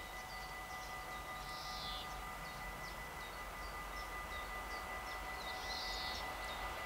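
Distant freight train hauled by DB Schenker Class 6400 diesel locomotives approaching, a faint rumble and rail hiss slowly growing louder. Small birds chirp over it, with two short trills.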